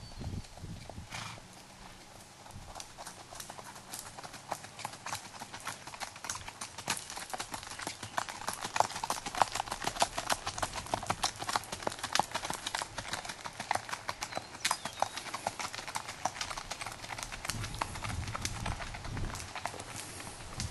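Hoofbeats of a gaited mountain-horse mare moving at a smooth, even gait on a gravel path: a rapid, steady run of hoof clicks, growing louder after a few seconds and loudest around the middle.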